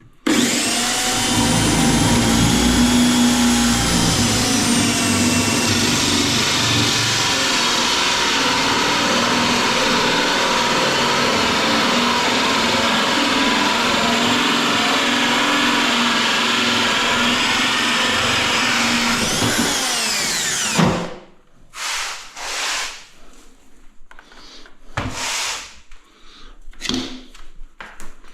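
Power drill running a hole saw through the vanity cabinet's panel to cut a pipe hole: a steady whine for about twenty seconds, then the motor winds down with a falling pitch. A few short knocks and scrapes follow.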